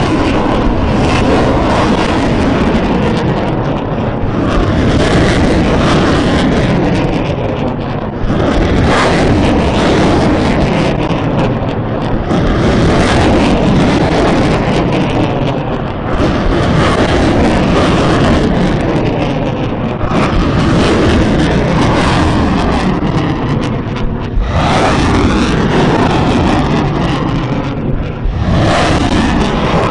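BM-30 Smerch multiple rocket launchers firing 300 mm rockets in rapid succession: a loud, continuous rushing roar of rocket motors, with sharp fresh launches about eight seconds in and twice near the end.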